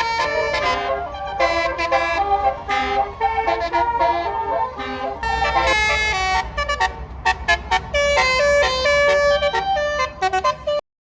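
A bus's Basuri multi-tone musical air horn (telolet horn) playing a quick tune of short notes, with an engine rumbling underneath in places. It cuts off suddenly near the end.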